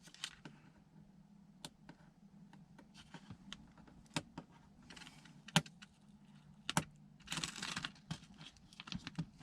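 Scattered small clicks and taps with a couple of short rustles, from hands handling and pressing down a vinyl sticker and its backing.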